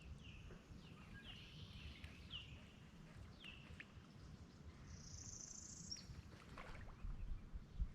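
Faint outdoor bird calls: several short chirps about a second apart, then a high buzzy trill about five seconds in. A couple of soft knocks come near the end.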